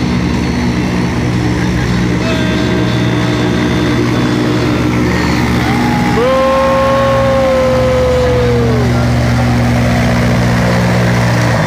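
Engines of stunt watercraft running at a steady pitch. About six seconds in, a high held tone sounds for roughly three seconds and falls away at its end.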